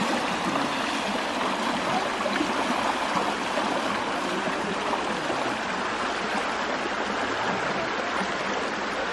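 Shallow stream water rushing steadily, with splashing from legs wading through it.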